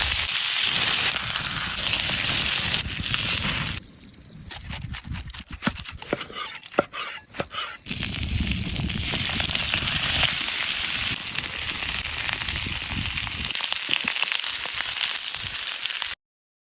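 Food sizzling and frying in a hot pan, a dense steady hiss, with a quieter stretch of scattered sharp crackles and clicks in the middle. It cuts off suddenly near the end.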